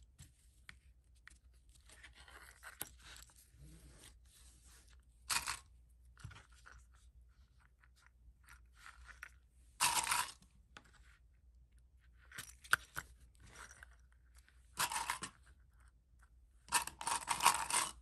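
Vinyl mesh fabric being handled and clipped on a cutting mat: light scraping and rustling, with four louder brief rustles.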